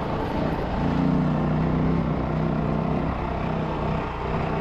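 Dual-sport motorcycle engine running under load, heard on board, as the bike climbs a steep, loose gravel trail; the engine note holds steady, then drops briefly near the end.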